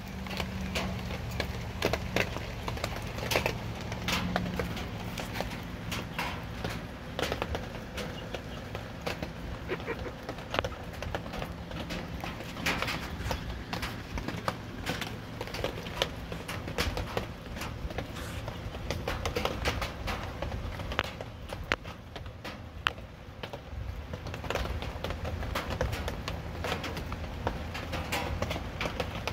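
Chickens pecking and moving about a phone on straw bedding: irregular sharp taps and knocks with rustling, over a steady low hum.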